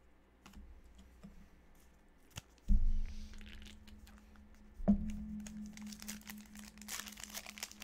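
A trading-card pack's foil wrapper crinkling and tearing as it is ripped open, a dense run of crackles in the last second or so. Earlier come two dull thumps about two seconds apart, with a low steady hum starting at the first.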